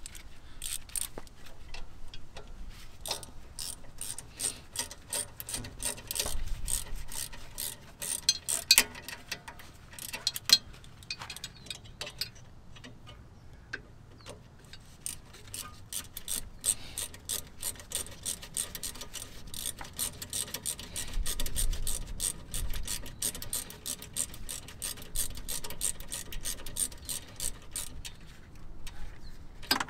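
Ratchet wrench clicking in quick runs as the rear brake caliper bolts are tightened, with a short lull about halfway through.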